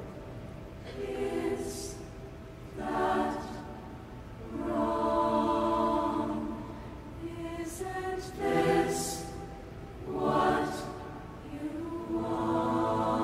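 A choir singing slow, held phrases, each a few seconds long, with brief pauses and soft sibilant consonants between them.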